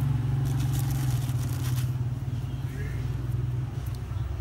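Compressed coconut-coir pellets dropped one by one into a plastic basin of water, giving small plops and taps, over a steady low hum that is the loudest sound.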